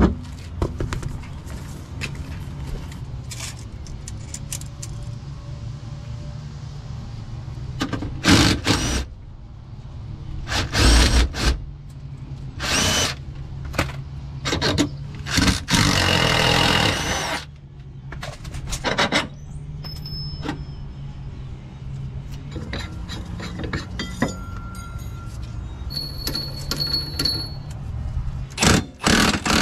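Cordless power tool run in several short bursts, with one longer run of about a second, as it drives suspension bolts on a car's rear suspension.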